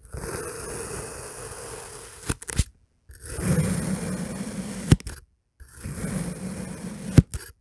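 Knife blade slicing slowly through a moulded dome of kinetic sand: three gritty, crunchy cuts, each ending in a sharp click.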